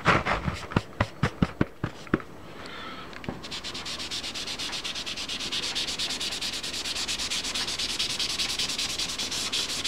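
Cotton ball rubbing powdered pigment, first in a dozen or so irregular scratchy strokes. From about three and a half seconds in it settles into quick, even back-and-forth scrubbing on the paper, several strokes a second.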